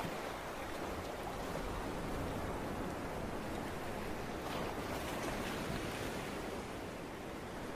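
Ocean surf: a steady wash of waves with gentle swells in loudness.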